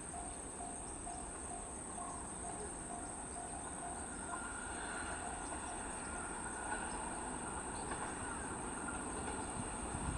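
Insects chirring steadily while a JR 205-500 series electric train approaches, its running noise growing faintly through the second half, with wheel knocks on the rails near the end. A faint repeated tone about twice a second sounds during the first few seconds and then stops.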